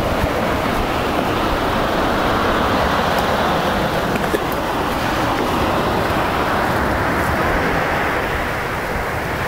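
Steady rushing noise of sea surf breaking on a shingle beach, even and unbroken.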